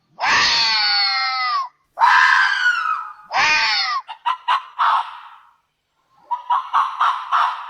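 An animal's loud, harsh screaming calls: two long screams that fall in pitch, a shorter one, then a quick run of short pulsed calls, about five a second.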